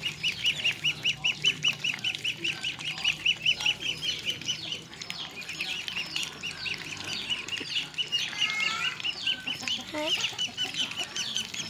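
Young Muscovy ducks peeping: a fast, even string of high peeps, about six a second, that loosens into scattered peeps about five seconds in, with a few lower, falling calls later on.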